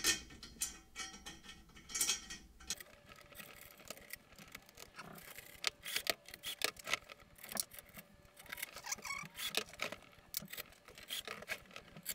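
Light metal clicks and clinks, many in quick irregular succession, as bolts and lock nuts are fitted by hand into the chrome tubing and ring of a bar stool frame.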